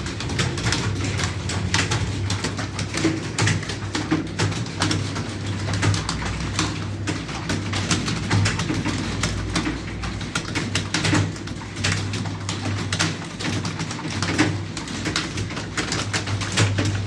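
Computer keyboard being typed on fast and continuously, a steady clatter of key clicks with no pauses.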